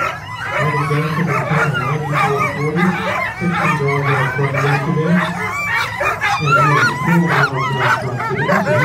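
A sled dog team barking and yipping excitedly in harness at the start line, many dogs at once.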